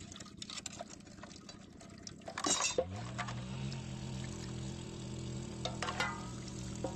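Liquid being poured, with light clinks of dishes and a steady low drone that sets in about halfway through.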